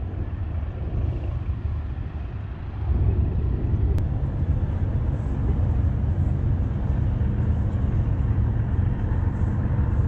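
A steady low outdoor rumble with no clear pitch, growing louder about three seconds in, with a single brief click near the four-second mark.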